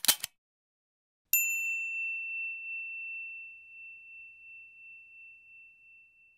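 Subscribe-button animation sound effects: a couple of quick mouse clicks, then about a second later a single bright bell ding that rings on and fades with a slow wavering for about five seconds.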